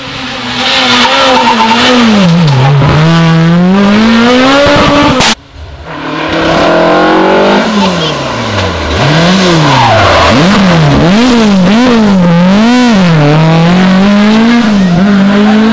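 Rally car engine at full throttle, its revs climbing and dropping through gear changes. About five seconds in the sound breaks off abruptly and another pass begins, with quick throttle lifts and blips making the engine note swing up and down several times a second or so.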